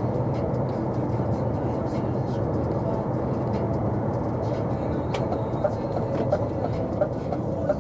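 Truck engine and road noise heard inside the cab at steady cruising speed, with light rattles and a sharp click about five seconds in.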